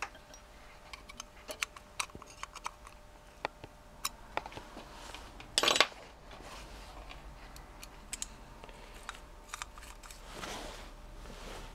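Light metallic clicks and taps of small screws, a screwdriver and the aluminium ignition trigger housing being handled while its mounting screws are fitted, with a short loud rustle about five and a half seconds in.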